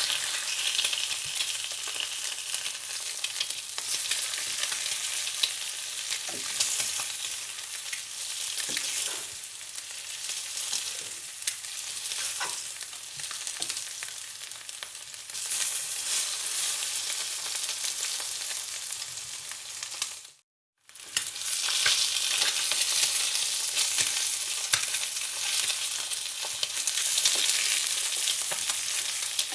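Food frying in hot oil, a steady dense sizzle and crackle of spattering oil. The sound cuts out completely for about half a second roughly two-thirds of the way through, then resumes.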